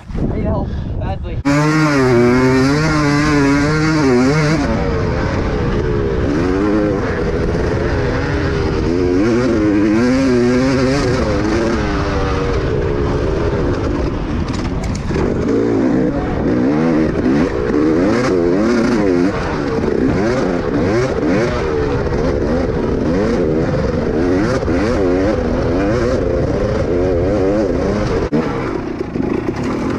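Dirt bike engine being ridden hard, its pitch rising and falling over and over as the rider works the throttle and gears. It comes in suddenly about a second and a half in.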